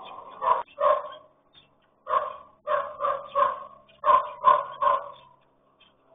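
A dog barking: about nine short barks in quick runs of two to four.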